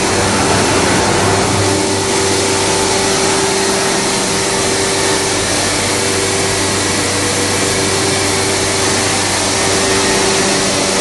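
CMS CNC machining centre running, a loud steady whir with several constant hum tones and no change in speed.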